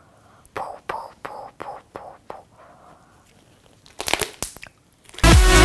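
Homemade slime being squeezed and poked by hand, a series of short wet clicks and pops, with a denser crackling run about four seconds in. Electronic dance music starts loudly near the end.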